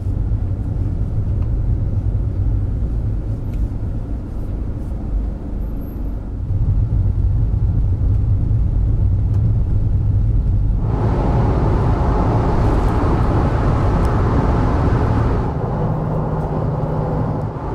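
Car on the move: a steady deep rumble of engine and road. From about eleven seconds in, a louder rushing noise joins it for about five seconds, then drops away.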